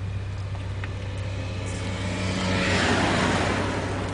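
A car driving past close by, its noise swelling to a peak about three seconds in and fading away, over a steady low hum.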